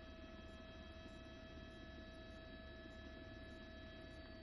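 Near silence with a steady electrical hum made of several constant tones.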